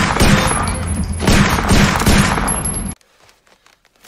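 Rapid, sustained gunfire: a dense burst of shots lasting about three seconds that cuts off abruptly, followed by near quiet.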